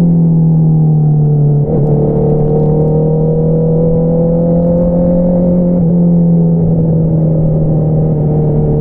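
Honda CBR650R's inline-four engine running steadily through an Akrapovič single-outlet exhaust while riding. Its note sags slightly, has a short break about two seconds in, then climbs slowly. Another small break comes around six seconds, after which the note holds steady.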